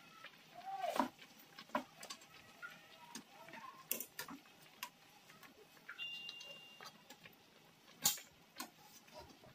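Metal tongs clicking and scraping against a metal wok as pork hocks are turned in their cooking liquid: scattered light clicks, the sharpest about eight seconds in.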